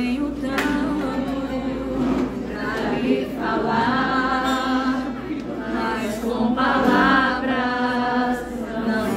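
Live singing of a song by several voices, a woman's voice at the front, in long held phrases over a strummed acoustic guitar.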